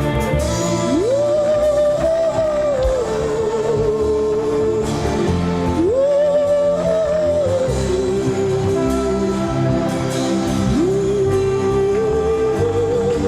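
Gospel worship music: a long held melody line slides up into sustained notes three times over a full band backing with guitar.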